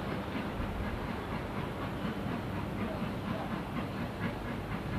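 Isle of Man Railway narrow-gauge steam locomotive working slowly in the distance: a steady hiss of steam with scattered light clanks and clicks from the engine and track.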